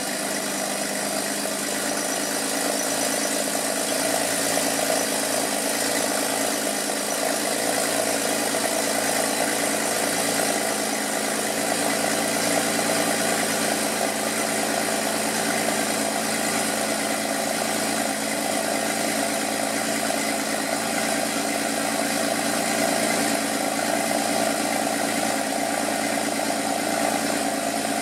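A 2011 Porsche Cayman S's 3.4-litre flat-six, idling steadily on a cold start, heard at the twin tailpipes of its stock exhaust (no sport exhaust).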